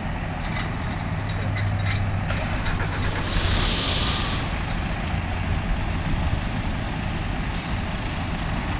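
Diesel engines of a farm tractor and a lorry tractor unit running steadily together, with a brief hiss about three and a half seconds in.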